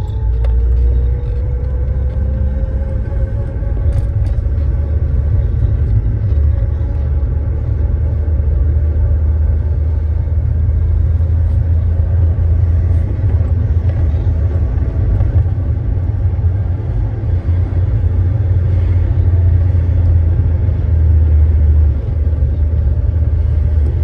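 Toyota Carina under way, heard from inside the cabin by the pedals: a steady low engine and road rumble. A fainter tone rises slowly in pitch over the first few seconds.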